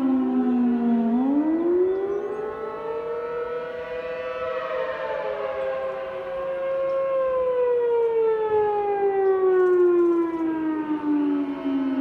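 Several outdoor storm warning sirens, among them a Federal Signal Thunderbolt, sounding together at different pitches in a test. The loudest siren climbs in pitch from about a second in, holds high for a few seconds, then winds slowly down. The others rise and fall out of step with it.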